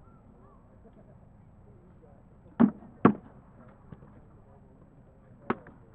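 Rattan practice-sword blows striking in armoured sparring: two sharp cracks about half a second apart, then a third, lighter crack a couple of seconds later.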